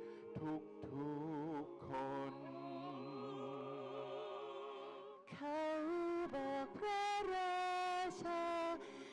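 Vocal ensemble singing a cappella in close harmony, holding long notes with vibrato. The chord fades softly to a brief dip about five seconds in, then the voices come back louder on sustained notes.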